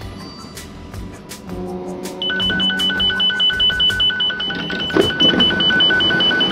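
Train door-release signal: a high beep repeating about five times a second while the door buttons light up green, with a knock about five seconds in as the doors open. Before it, steady humming tones.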